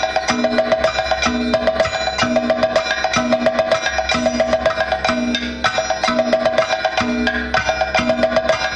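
Percussion-led Kathakali dance music: rapid, sharp drum and hand-percussion strokes over a short lower figure that repeats about every second, with a steady held note above, playing without a break.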